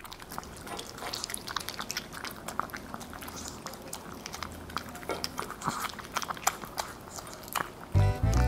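A Maltese dog eating from a stainless steel bowl: quick, irregular chewing clicks. Music comes in near the end.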